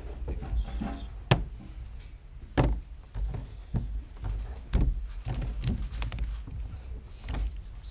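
Plastic puzzle cubes being handled and set down on a table: a series of separate knocks and clicks, about one a second, over a low rumble of the table being touched.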